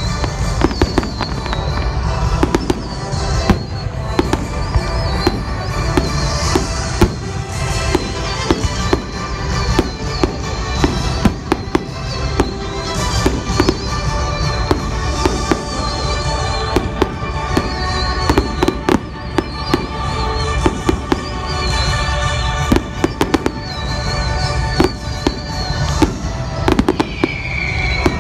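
Aerial fireworks shells bursting in a display, with frequent sharp bangs, over music playing throughout.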